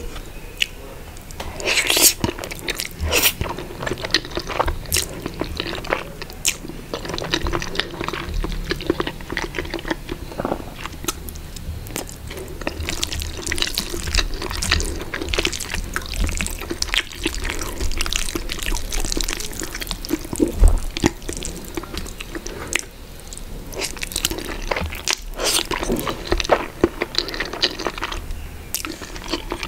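Close-miked wet chewing and mouth sounds of someone eating creamy spaghetti carbonara: a dense run of short clicks and smacks. Near the end noodles are slurped in.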